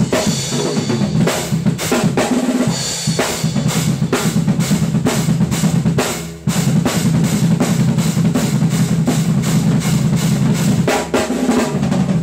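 DW Collector Series drum kit with Zildjian K cymbals played fast: dense rolls and fills across snare, toms and bass drum, with cymbals ringing over them. The playing stops briefly a little past six seconds in, then starts again just as hard.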